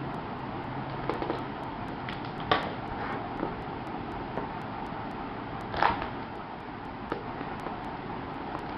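Keyboard packaging being handled and opened: scattered knocks, clicks and scrapes over a steady background hiss. The sharpest knock comes about two and a half seconds in, and a short cluster of them near six seconds.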